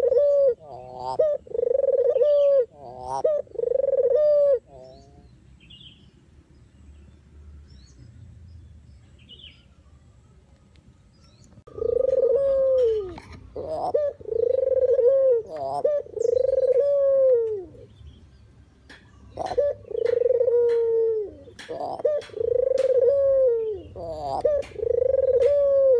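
Puter (deruk) dove cooing: a series of low coos about one a second, each rising slightly and then falling away. The calls pause for several seconds after about five seconds and then start again. Sharp clicks are scattered among the later coos.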